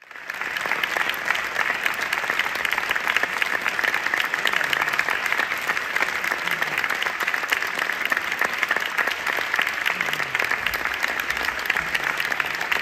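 Theatre audience applauding: dense, steady clapping from many hands.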